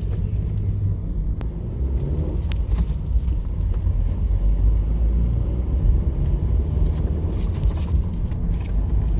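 Honda Fit driving on the road, a steady low rumble of road and engine noise heard inside the cabin, with a few scattered light clicks or knocks.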